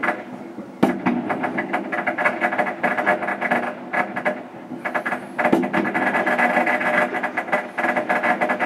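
Dense, rapid crackling of Spring Festival fireworks and strings of firecrackers going off, thickening about a second in and again about halfway through.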